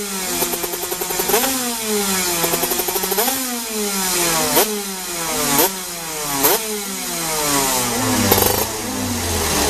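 Two-stroke go-kart engine on a stand, revved by hand in quick throttle blips through its expansion-chamber exhaust: the revs shoot up and fall back about once a second. Near the end the revs sit lower and rougher.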